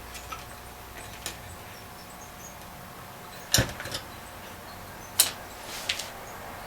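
Scattered sharp clicks and knocks of small parts and tools being handled on a workbench, loudest about three and a half seconds in, over a faint steady hum.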